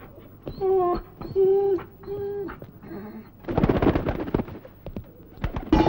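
A dog whines four times in short cries that hold a steady pitch, then gives a rough, harsh burst of sound about three and a half seconds in. A loud sound with a different character starts near the end.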